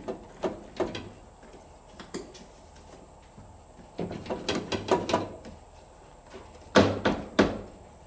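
Truck door glass and wing-window frame being forced into the door's track, knocking and rattling against the metal channel: a few separate knocks, a quick clattering run about four seconds in, and two loud knocks about a second before the end as the glass is pushed to seat.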